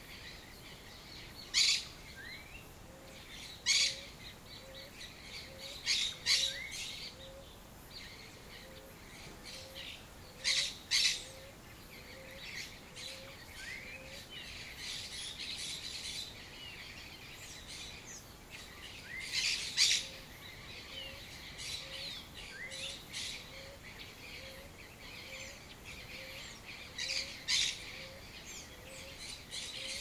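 Several wild birds calling at once: loud sharp high calls every couple of seconds, quieter twitters and short rising chirps between them, and underneath a soft low note repeated evenly about one and a half times a second.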